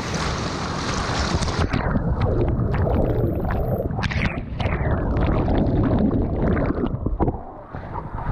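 Rushing river whitewater with heavy wind buffeting on the action-camera microphone, broken by many short, sharp splashes. The rush drops briefly near the end.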